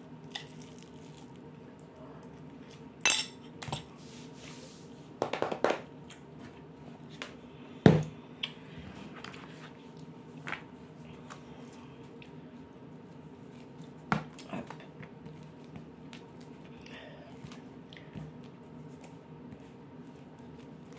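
Scattered knocks, clicks and rustles of a hot glue gun and card pieces being handled and set down on a plastic cutting mat, the loudest a sharp knock about eight seconds in. A faint steady hum lies underneath.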